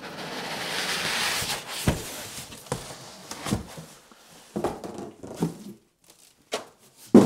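Packing foam being clawed and pulled out of a cardboard box by hand: a scraping rush of foam rubbing against the box for about two seconds, then a series of knocks and bumps, ending in a louder thump.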